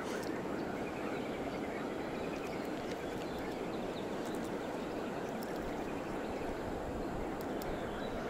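Steady outdoor wind noise on the microphone, with a few faint small clicks as the spinner and hook are handled.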